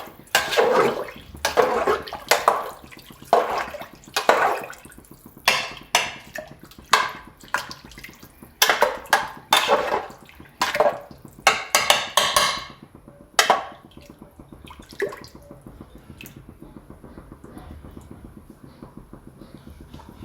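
Water splashing in a cooking pot in repeated bursts about once a second, as water is added to and worked through the rice and fenugreek-leaf masala. The splashing stops about thirteen seconds in, leaving a faint, fast, even pulsing.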